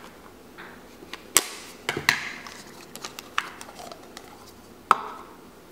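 Plastic Play-Doh tub being opened and handled: a handful of sharp plastic clicks and taps, the loudest about a second and a half in and near the end.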